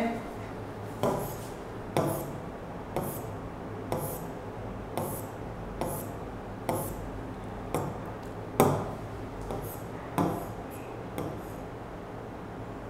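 About a dozen sharp taps of a pen on the glass of an interactive touchscreen display, roughly one a second, as pages are flipped; one tap about two-thirds of the way through is the loudest.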